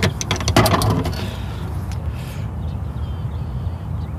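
Several sharp clicks and a clatter in the first second as a metal dehooker tool is set into its holder on a boat's console, over a steady low rumble.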